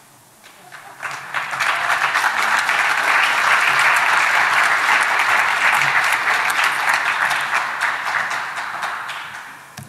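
Audience applauding. It swells about a second in, holds for several seconds and dies away near the end.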